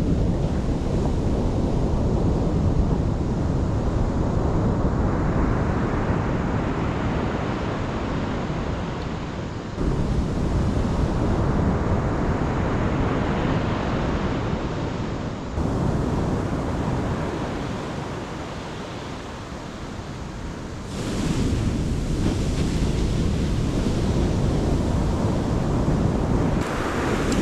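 Ocean surf breaking and washing up a beach, with strong wind buffeting the microphone. The sound swells and ebbs with the waves and changes abruptly about three times.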